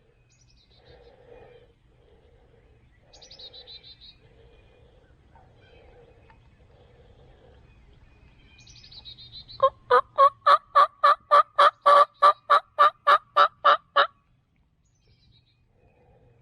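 A loud run of about eighteen evenly spaced turkey yelps, about four a second, starting some ten seconds in and stopping about four seconds later. It is a hen-style yelping sequence used to call a gobbler in, with fainter scattered sounds before it.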